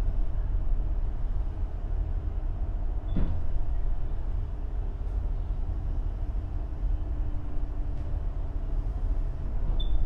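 Strong wind buffeting the microphone on the open deck of a moving excursion boat, a steady rumble, with a faint, even drone of the boat's engine beneath it.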